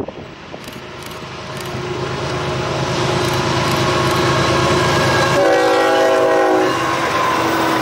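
Freight train led by a CSX GE ES44AH diesel locomotive approaching and passing close by at speed, its engine and wheels growing louder over the first few seconds. About five seconds in, as the locomotives pass, the air horn sounds one chord-like blast of about a second and a half.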